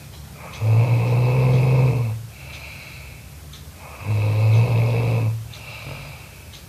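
A person snoring loudly: two long, rattling snores about three and a half seconds apart, with quieter breathing between them.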